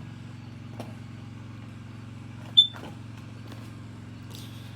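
Kidde KN-COB-IC smoke and carbon-monoxide alarm's piezo giving a single short, high chirp about two and a half seconds in, during the test delay before the full alarm sounds. A steady low hum runs underneath, with a few faint clicks.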